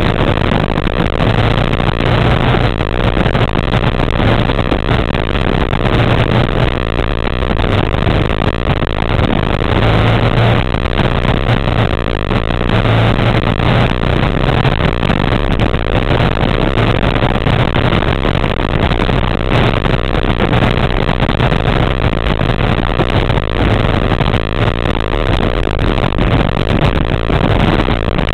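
A vehicle's engine running while under way, its low drone swelling and fading every few seconds over a steady rushing noise.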